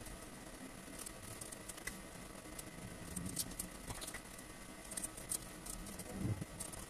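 Scattered light clicks, taps and rustles of hands working a plastic hand-held cigarette rolling machine and picking through loose tobacco and foam filters, with a couple of soft bumps.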